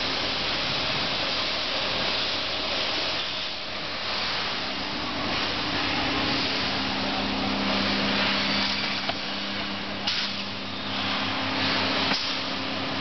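Vacuum tube lifter's 3 kW electric vacuum pump running: a steady, loud rushing hiss, joined by a low hum about five seconds in, with two sharp clicks near the end.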